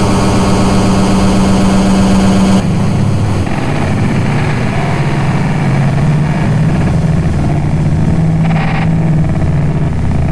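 Lo-fi experimental noise music: a loud, dense droning texture over a steady low hum, which changes abruptly about two and a half seconds in to a thinner, lower, wavering drone.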